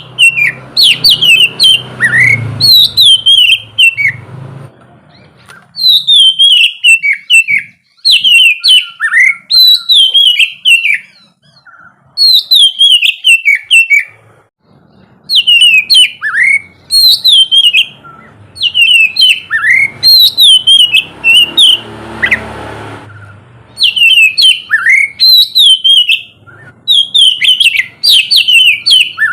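Oriental magpie-robin (kacer) singing: loud phrases of quick, high whistled notes that slide downward, each phrase lasting a second or two and repeated after short pauses. A faint low rumble sits underneath near the start and again around two-thirds of the way through.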